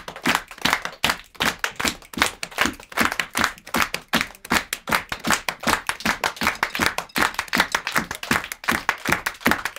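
Body percussion: hands clapping and slapping against the chest in a fast, even rhythm, played by several people together.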